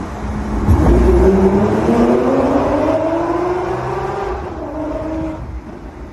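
Lamborghini Aventador SVJ Roadster's naturally aspirated V12 under hard acceleration in a tunnel. It starts with a sharp hit about a second in, then climbs in a steadily rising wail for about three seconds, levels off, and fades away near the end.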